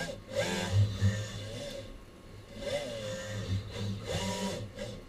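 Epson robot arms, including a Flexion N2 six-axis arm, whirring as their servo motors speed up and slow down in uneven surges, with a brief lull about two seconds in. Exhibition-hall background noise lies underneath.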